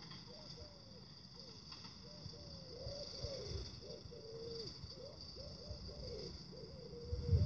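Pigeons cooing, a quick run of low notes that each rise and fall, over a steady high hiss. A low thump near the end.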